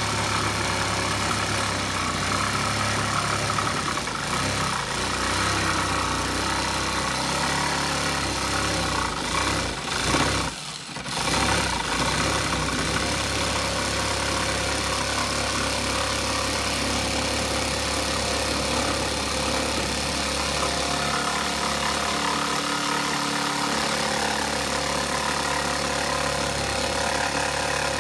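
Electric power sander running steadily on oak boards, with one brief dip about ten seconds in before it carries on.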